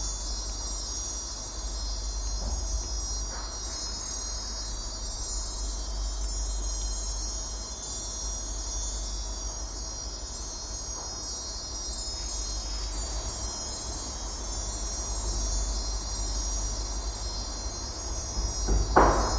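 Fairy-dust magic sound effect: a continuous high, glittering chime shimmer over a steady low hum, with a louder flourish near the end.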